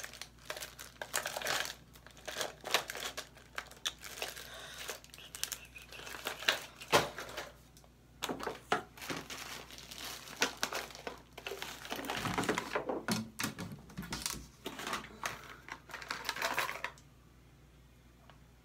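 Rummaging through a plastic makeup box for an eyebrow pencil: small items clicking and clattering against the plastic, with crinkling rustles. The handling stops a second or two before the end.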